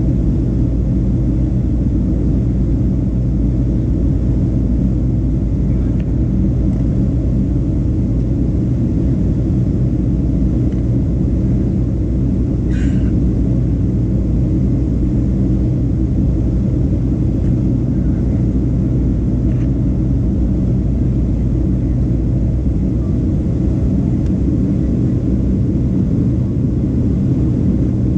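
Steady cabin drone of a Boeing 737 in flight, its jet engines and rushing air heard from a window seat over the wing, during the climb after takeoff. A single brief click about halfway through.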